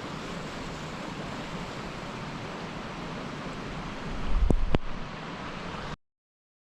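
Steady rush of flowing river water. About four seconds in, a brief low bump with two sharp clicks rises over it, and near the end the sound cuts off abruptly.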